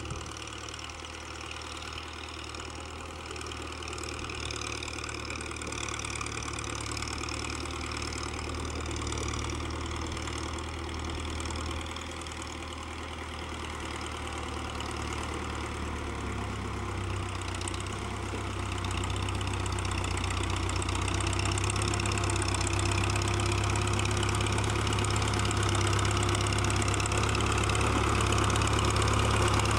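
Ford farm tractor's diesel engine running steadily as the tractor drives through mud on cage wheels, growing louder as it comes closer.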